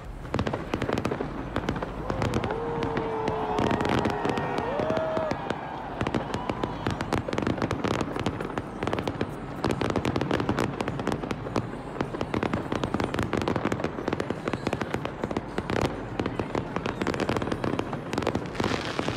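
Fireworks display going off overhead: a dense, continuous run of crackling and banging shots.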